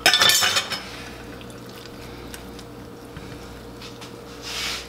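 A ceramic serving platter clatters and rings briefly as it is set down beside a wooden cutting board. Near the end there is a short soft scrape as slices of cooked corned beef are lifted off the board.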